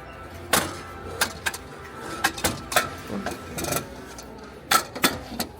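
A string of irregular sharp clicks and clacks, hard objects being handled and knocked together, over a steady low store hum.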